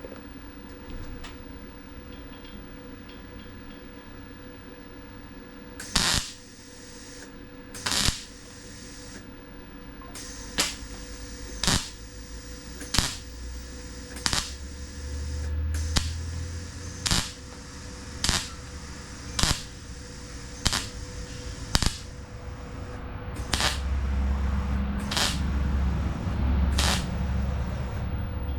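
MIG welder laying short tack welds on thin car-body sheet metal: about fifteen brief bursts of arc crackle, one every second or two, as a patch panel is tacked in. A low hum rises near the end.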